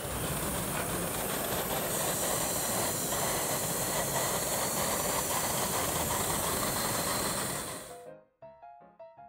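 Steady hiss of steam escaping from a gauge 1 model steam locomotive, fading out about eight seconds in; piano music follows.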